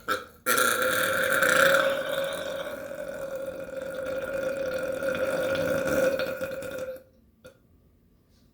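One long, continuous human burp, held at a steady pitch for about six and a half seconds before it stops abruptly; a record-length burp.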